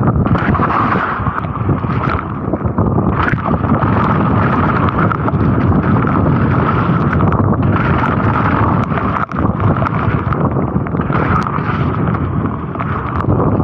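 Loud, steady rushing rumble of wind buffeting a small action camera's microphone on a downhill mountain-bike run over a wet trail, with a few sharp knocks from the bike over rough ground.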